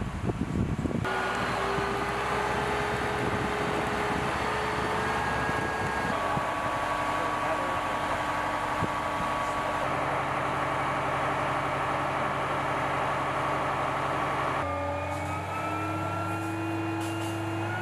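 Military fire truck's engine and water pump running steadily: a dense rush of noise with a steady whine over it. The sound changes abruptly about a second in, around six seconds in and near the end, where the whine rises slightly in pitch.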